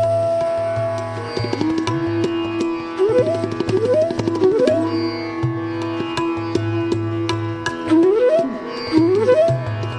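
Background music, Indian classical instrumental: a held note that fades out just over a second in, then a plucked string instrument like a sitar playing a sustained note with repeated rising slides over tabla strokes and a steady low drone.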